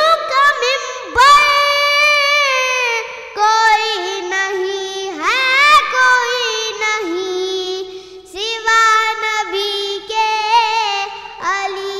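A boy's solo voice singing an Urdu devotional poem (manqabat) in praise of Ali, with long, wavering, ornamented held notes that rise and fall in pitch.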